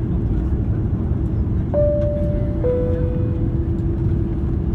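Steady low rumble of an airliner cabin, with a two-note chime, a high note then a lower one, about two seconds in: the cabin's passenger-address chime.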